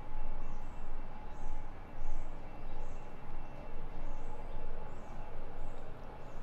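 Footsteps of someone walking, a soft step about every 0.6 seconds, over a steady hum of background noise with two faint steady tones.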